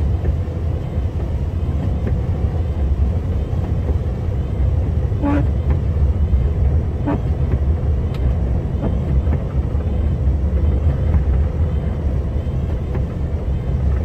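Snowplow truck driving, heard from inside the cab: a steady low rumble of engine and road noise.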